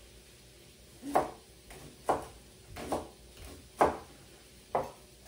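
Chef's knife slicing through leeks and striking the cutting board, five knocks a little under a second apart starting about a second in.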